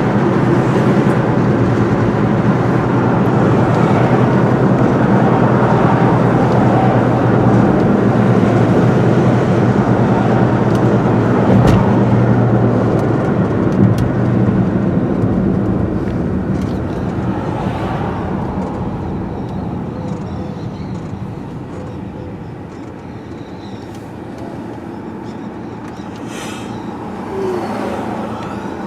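A car driving along a road: steady engine and tyre drone that eases off about two-thirds of the way through, with a couple of brief clicks near the middle.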